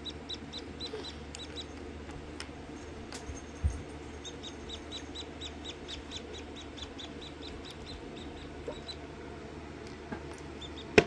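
Newly hatched Rhode Island Red chick peeping: runs of short, high peeps, three to four a second, broken by a pause of a couple of seconds about a third of the way in. A soft low thump is heard during that pause.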